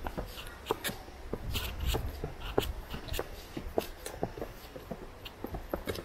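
Footsteps and scuffing on a forest path: irregular short clicks and knocks, a few each second, over a low rumble.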